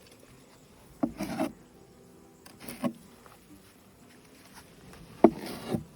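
Wood scraping and knocking from the hive being worked: three short scrapes, each starting with a sharp knock, as wooden hive frames are rubbed and pried against the hive body.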